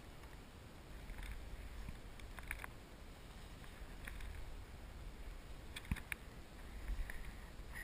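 A low steady rumble with a few short sharp clicks and knocks from a small inflatable boat as fishing gear is handled, two clicks close together about six seconds in.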